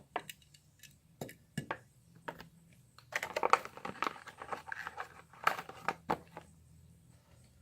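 Plastic blister pack of a carded diecast car being cracked open and pulled from its card by hand: scattered clicks and snaps, with a stretch of crinkling plastic about three seconds in and two sharp snaps near the end.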